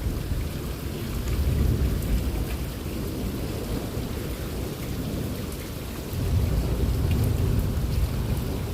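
Rolling thunder rumbling from high in the sky, a low continuous rumble that swells louder about six seconds in.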